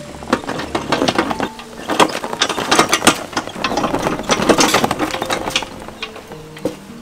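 Rapid rattling and clicking from a hand cart loaded with cow leg bones, dense for most of the stretch and thinning out about six seconds in.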